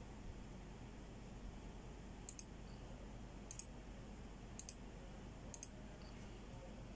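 Computer mouse button clicked four times about a second apart, each a quick pair of sharp clicks, over a steady low hum.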